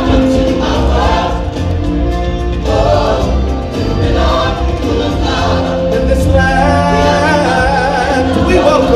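Choir singing over music with a deep, pulsing bass.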